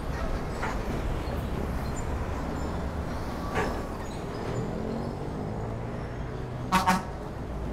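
City street traffic heard while riding a bicycle: a steady low rumble of vehicles, a brief pitched sound about three and a half seconds in, and two short loud beeps near the end.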